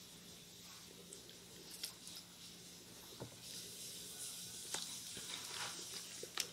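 Fingers pulling meat and skin off a whole cooked chicken: soft squishy tearing with scattered small crackles, busier in the second half.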